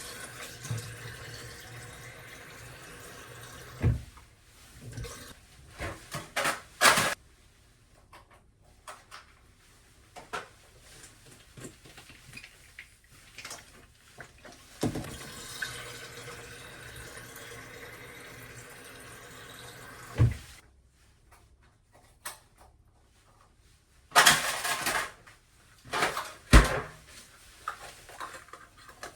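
Water running from a tap in two spells that start and stop abruptly, with knocks and clatter in between.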